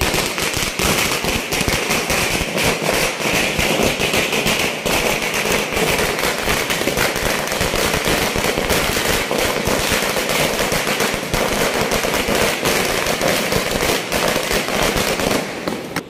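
A long string of firecrackers going off, a continuous rapid run of sharp bangs and crackles that tails off near the end.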